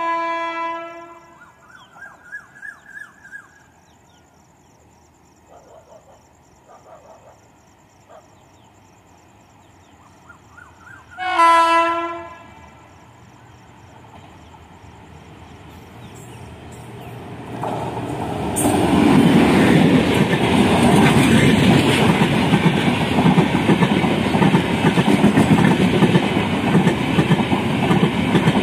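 Indian Railways WAP-7 electric locomotive sounding its horn in two blasts of about a second each, the second about eleven seconds after the first, as it approaches. From about two-thirds of the way through, the express train passes close by at speed, loud with the clatter of its wheels and coaches going past.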